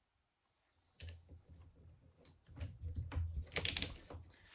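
Hands working on a metal and plastic RC truck front end: a run of small clicks and knocks from parts and tools being handled, starting about a second in, with a sharper cluster of clicks near the end.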